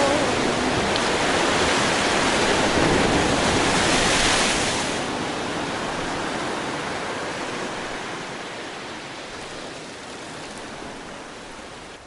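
Sea surf: an even wash of breaking waves. It swells about four to five seconds in, then slowly fades out.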